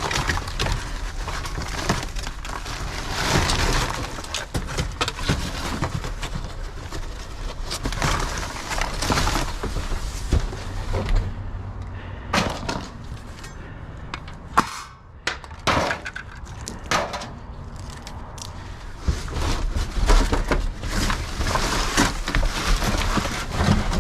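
Rummaging through cardboard and loose scrap in a dumpster: rustling and scraping with many short knocks and clinks of items being moved.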